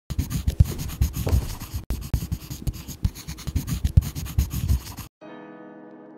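Pen writing on paper close to the microphone: a quick run of scratchy strokes and taps that stops abruptly about five seconds in, followed by soft background music.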